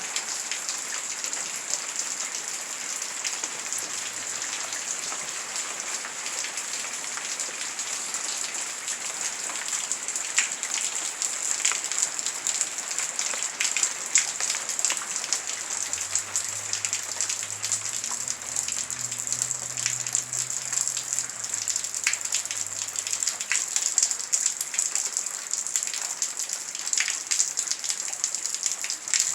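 Heavy rain falling: a steady, dense hiss of drops with individual heavier drop hits standing out here and there.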